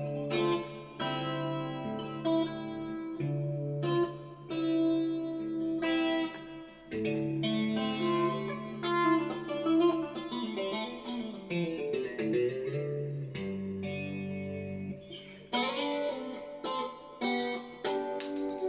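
Fender Stratocaster electric guitar played with a clean tone: ringing arpeggiated chords over deep bass notes, mixing right-hand tapping on the fretboard with picked notes. Around the middle a few notes slide up and down in pitch.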